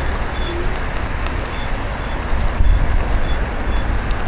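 Wind rushing over the microphone and tyre noise from a Kukirin G2 Master electric scooter riding along a road, a steady low rumble. Faint short high chirps repeat every half second or so.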